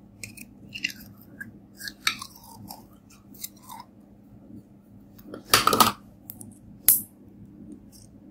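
Sticky slime being handled and pulled from a plastic container: a run of short squeaky squelches, several falling in pitch, then the loudest sound, a dense crackling squelch lasting about half a second past the middle, and a single sharp pop about a second later.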